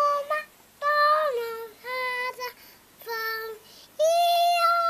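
A two-year-old girl singing unaccompanied: several short sung phrases on held notes, with brief pauses between them.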